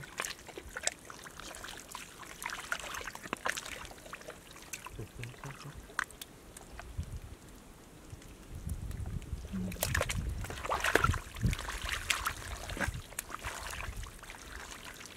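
Hands groping through shallow muddy water and mud, with wet squelches, splashes and trickling water. The splashing gets louder for a few seconds from about nine seconds in.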